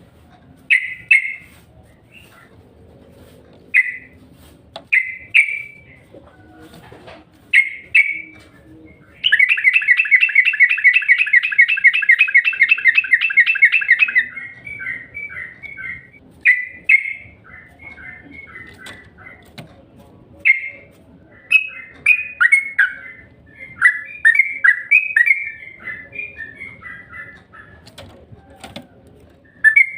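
Sooty-headed bulbul (trucukan) singing: short bubbly phrases with gaps between them, then from about nine seconds in a fast, even trill that lasts about five seconds, after which the phrases run together in quick succession.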